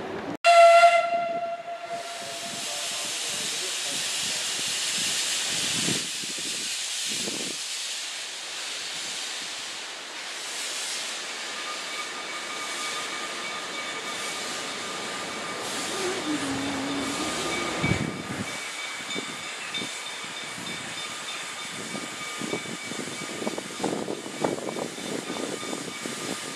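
Steam locomotive's whistle blows once, loud, for about a second and a half, then steam hisses steadily as the engine shunts, with uneven puffs of steam near the end.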